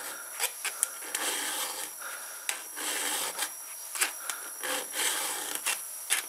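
A round chainsaw file rasping across the cutters of a Stihl MS 290's chain in repeated push strokes, roughly one a second, with small clicks as the file meets the teeth. The chain is being sharpened by hand.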